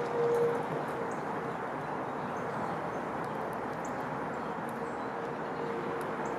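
Steady outdoor background rumble with a faint hum, and a few brief, faint high chirps and ticks from small birds scattered through it.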